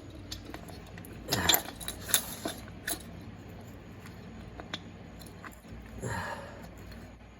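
A few sharp clicks and light knocks of metal transmission parts and a wing-nut hold-down tool being worked by hand, bunched in the first three seconds. Near the end comes a breathy sniff.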